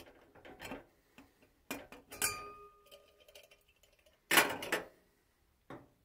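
Metal cookware and a spoon being handled: a few knocks and clinks, one ringing briefly, then a louder clatter about four seconds in.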